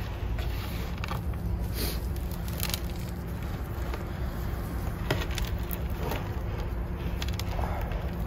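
Fingers picking and crumbling old, wet potting substrate and gravel off an apple tree's root ball, giving scattered small crackles and clicks as clumps drop onto the table, over a steady low rumble.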